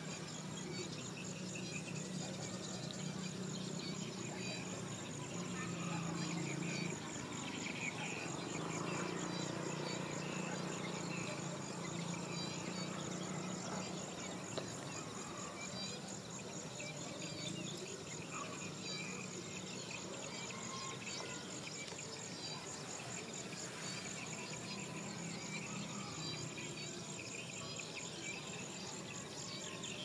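Insects trilling steadily in grassland, a high continuous pulsing buzz, with scattered short bird chirps and a low steady hum underneath.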